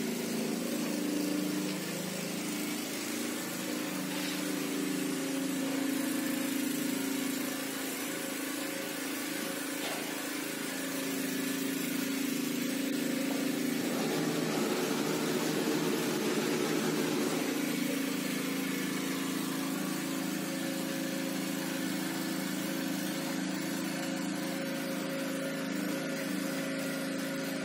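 Steady hum of the motor in a Gartech steam ironing table, running continuously and a little louder midway.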